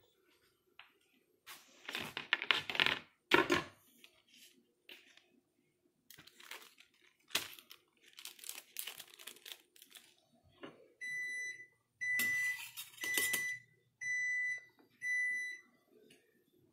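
Thin plastic wrapper crinkling and tearing as an individually wrapped cheese slice is unwrapped and handled, then a kitchen appliance beeping five times, each beep a steady high tone under a second long.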